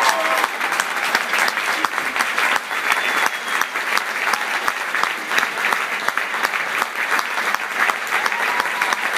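Concert audience applauding, a dense, steady clapping of many hands that holds at an even level throughout.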